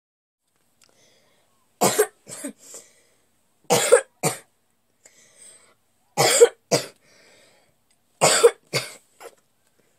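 A girl coughing into her hand in four short fits, two or three coughs each, about two seconds apart; she is losing her voice.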